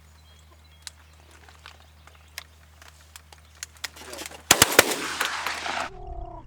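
A rapid volley of shotgun blasts, several shots fired almost at once about two-thirds of the way in, followed by a second or so of noisy aftermath.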